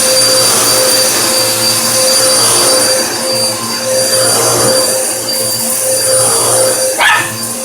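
Bissell vacuum cleaner running with a steady high motor whine. One brief, sharp pitched sound cuts in near the end.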